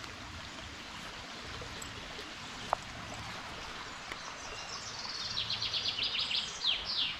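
A songbird singing a fast run of high repeated notes that ends in a couple of quick falling slurs, over the steady rush of a small forest brook. A single sharp click sounds a little under three seconds in.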